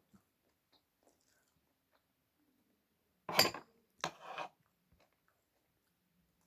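Eating utensils scraping and clattering against a plate while eating: two short bursts about half a second apart, past the middle, with quiet around them.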